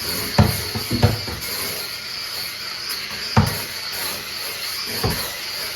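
Cordless electric spin scrub brush running with a steady high whine as it scrubs a bathtub, with a few dull knocks.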